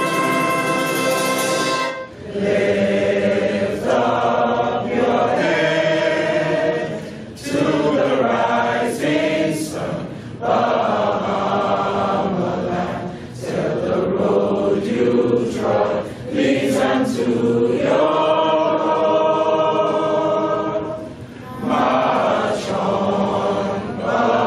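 A school concert band's brass and saxophones hold a chord that cuts off about two seconds in. A standing crowd then sings a song together in unison, in long phrases with short breaks between them.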